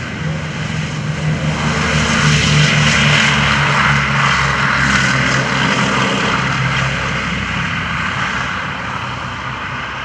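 Boeing B-17 Flying Fortress's four Wright R-1820 Cyclone radial engines running at takeoff power as the bomber rolls down the runway and lifts off. The drone grows to its loudest about three seconds in, then slowly fades as the aircraft climbs away.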